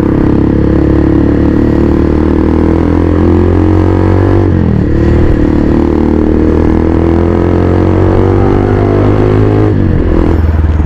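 Motorstar Z200X motorcycle running through a Villain R11 open pipe while being ridden. The steady engine note eases slowly lower in pitch, dipping briefly about four and a half seconds in and again near the end.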